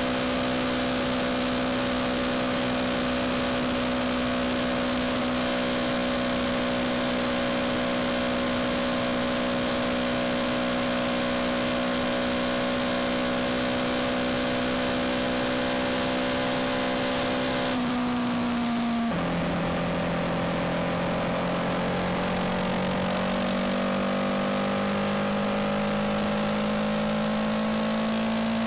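Yamaha MT-125's single-cylinder engine running at steady revs under heavy wind and road noise. About two thirds of the way in, the engine note drops abruptly to a lower pitch, then climbs slowly as the bike accelerates.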